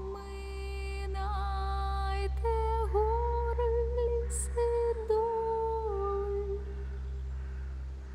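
Soundtrack music: a wordless voice humming a slow, mournful melody in long held notes that slide from one pitch to the next, over a steady low drone.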